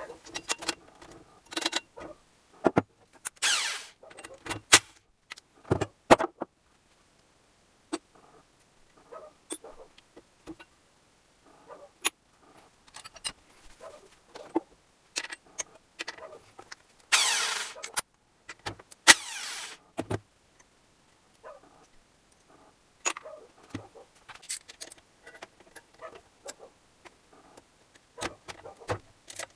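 Metal hand tools and engine parts clinking, clicking and clattering as they are handled, with three longer noisy stretches of about a second each, one near the start and two in the middle.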